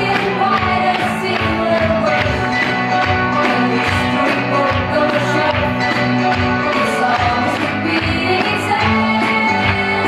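Music with a steady beat and held melody notes, playing throughout.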